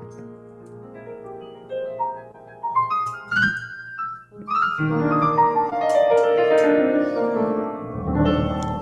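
Piano playing jazz: a soft passage, a rising run of notes about three seconds in, then fuller, louder chords from about five seconds in.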